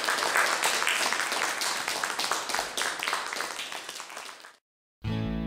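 Audience applause, many hands clapping at once, fading and cutting off about four and a half seconds in. After a brief silence, guitar music starts near the end.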